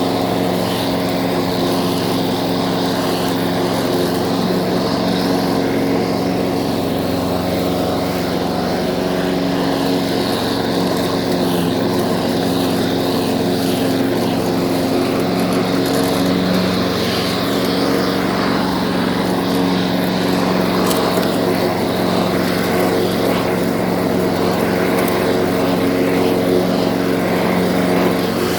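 Lawn mower's small petrol engine running steadily at constant speed.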